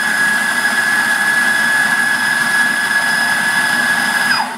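Electric espresso grinder running, grinding coffee beans into a portafilter: a steady high motor whine over a gritty grinding noise, winding down in pitch and stopping near the end.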